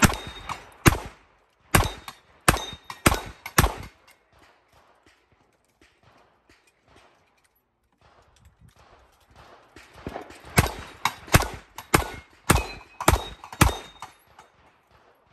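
Revolver shots fired at steel plate targets: a string of about six shots in under four seconds, several seconds with only faint handling clicks while the revolver is reloaded, then a second string of about six shots. A thin ringing follows some shots as the plates are hit.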